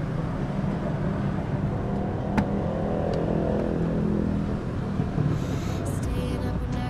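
Street traffic rumble with a motor vehicle's engine swelling and fading as it passes, about midway. A single sharp click a little over two seconds in.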